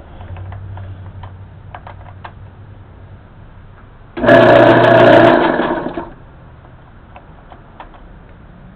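Craftsman Dunlop 109 metal lathe running under its motor with gear and belt noise. It is shut off at the start and its hum fades over a few seconds with scattered clicks and ticks. About four seconds in it is started again, runs loudly for under two seconds and is stopped.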